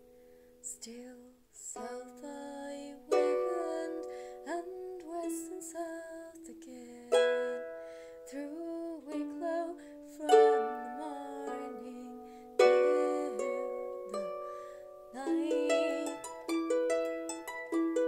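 Solo harp plucked, a slow melody of ringing notes and chords in short phrases, breaking into a quicker, steady run of notes near the end.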